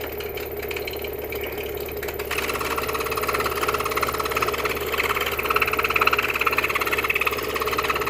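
Scroll saw running, its fine blade moving rapidly up and down; about two seconds in the blade starts cutting into 1/4-inch birch plywood, adding a steady, higher cutting buzz over the machine's hum.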